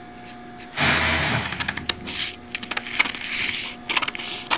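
Scissors cutting through a brown paper sewing pattern: a run of crisp snips and paper crackle starting about a second in, with a low rumble under it.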